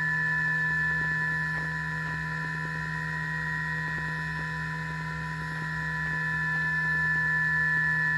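CNC milling machine running a carbide end mill in a dynamic-milling cut in stainless steel: a steady high spindle whine over a low hum, with a fine rapid ticking of the cut. The loudness swells and dips slowly as the cut goes on.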